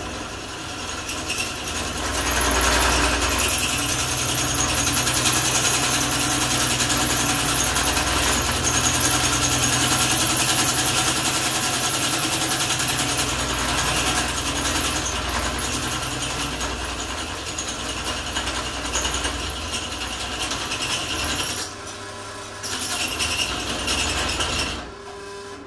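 Metal-turning lathe running with a steady whine of its gears while an 8 mm drill is fed into the workpiece. The sound dips briefly near the end, then falls away.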